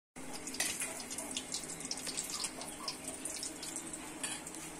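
Heavy rain falling: a steady hiss with many irregular sharp drip-like ticks.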